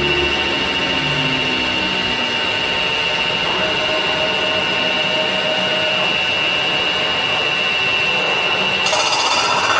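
CNC metal spinning machine running, its forming roller working a spinning sheet-metal blank, with a steady high whine throughout. About nine seconds in, the sound turns harsher and hissier.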